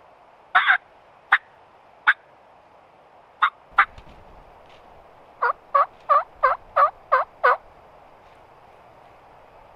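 Turkey clucks and yelps: a few sharp single and paired notes in the first four seconds, then a run of seven yelps at about three a second, each note sweeping down and back up in pitch.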